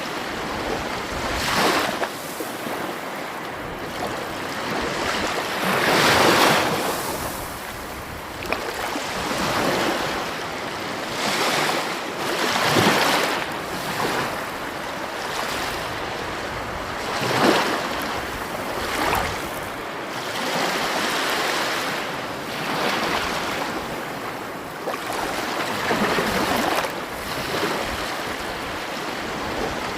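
Sea waves breaking and washing in, an unbroken rushing wash with a louder surge swelling and fading every few seconds.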